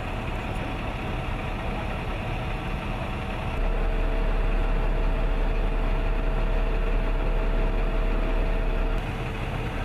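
Fuel truck's engine idling, running its refuelling pump, a steady engine sound. About a third of the way in it becomes louder and deeper with a steady tone over it, then drops back near the end.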